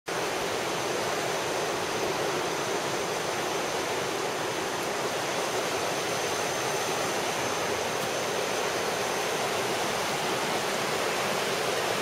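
River rapids rushing over rocks: a steady, even wash of fast-flowing water.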